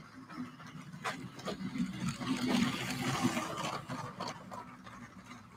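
LEGO 60197 passenger train running on plastic LEGO track: a steady hum from its electric motor, a few sharp clicks from the wheels and couplings, and a hissing rush that grows louder around the middle.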